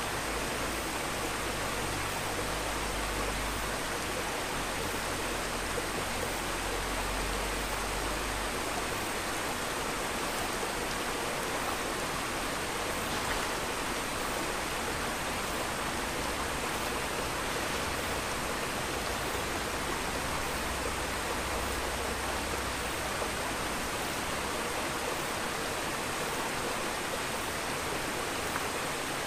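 Steady rush of running water, as from an aquarium's filter or pump outflow churning the tank, with a faint steady high whine above it.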